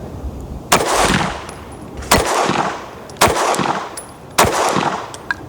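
Fusion Firearms XP-Pro pistol firing slow aimed shots, four in all, a little over a second apart, each followed by a short echo.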